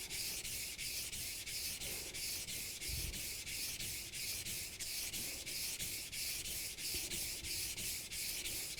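Japanese kitchen knife stroked back and forth on a wet sharpening stone, an even scraping rhythm of about three strokes a second, the blade grinding through the stone's wet slurry.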